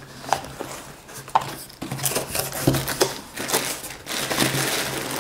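Packaging being handled and opened: scattered clicks and knocks with rustling and crinkling, busier in the second half, over a faint steady hum.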